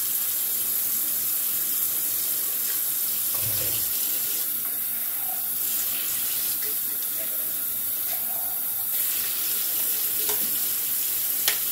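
Kitchen tap running steadily into a plastic colander of drained canned mixed vegetables in a stainless steel sink, rinsing them. A low thump about a third of the way through and a few light clicks, the sharpest near the end.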